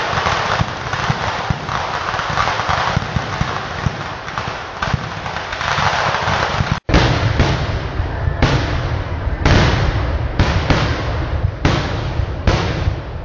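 Fireworks display: a dense, continuous barrage of firecracker bangs, then, after a momentary gap about seven seconds in, a string of separate heavy blasts about one or two a second.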